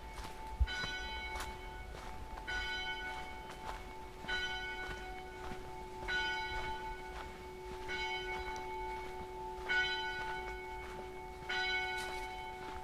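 A church bell tolling slowly, struck about every two seconds, its hum ringing on between strokes. A single thump about half a second in.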